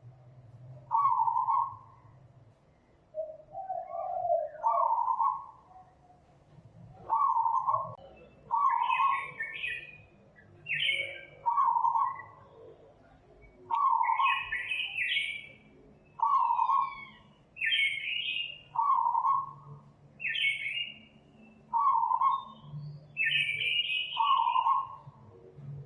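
Puppies whining and crying in short repeated calls, about one every second or two. Higher-pitched squeals join in about a third of the way through.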